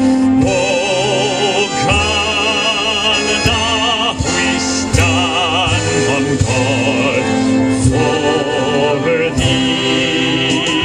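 A man singing in a full, operatic style with wide vibrato, holding and changing notes over a musical accompaniment.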